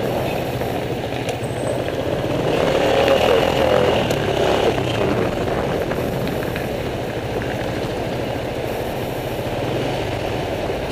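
Small motor scooter's engine running as it rides slowly along a street, swelling a little a few seconds in, with traffic noise around it.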